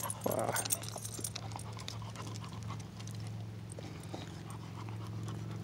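A dog panting, with scattered crunches of footsteps on desert gravel and a steady low hum underneath.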